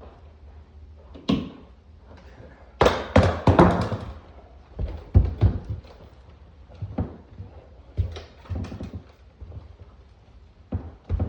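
Irregular knocks, clunks and rattling clicks of a wall-sconce fixture and its mounting hardware being handled and fitted against the wall. The loudest is a dense clatter about three seconds in.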